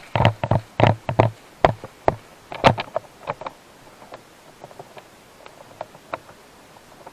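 Airsoft guns firing: a quick string of loud, sharp shots in the first three seconds, then fainter, scattered shots.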